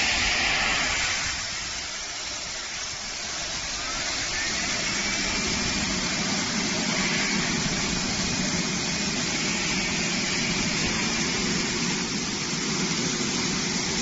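Vegetable bubble washing machine running: water hissing from the spray-nozzle bar and air bubbles churning the tank water. A low steady motor hum joins about four seconds in.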